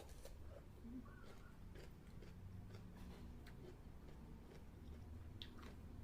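A person chewing food, with faint, scattered clicks and smacks of the mouth over a low hum.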